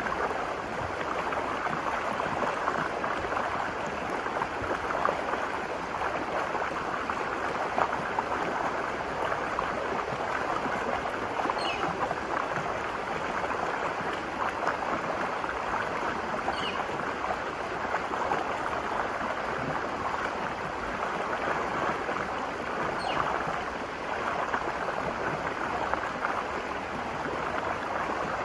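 The Virgin River flowing: a steady rush of stream water, with a few faint, short, high chirps about every five seconds.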